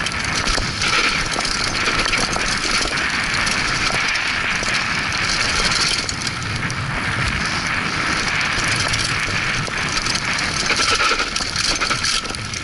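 Mountain bike descending a dirt trail: knobby tyres grinding over loose dirt and stones, with the bike rattling and clicking continuously over the bumps.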